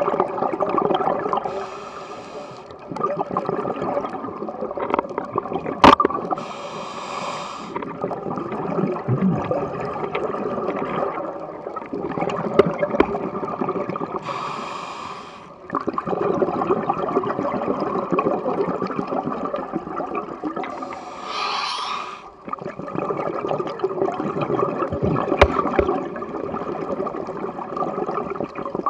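Scuba diver breathing through a regulator underwater: four short hissing inhales several seconds apart, each followed by a long bubbling exhale. Two sharp clicks also sound, one about six seconds in and one near the end.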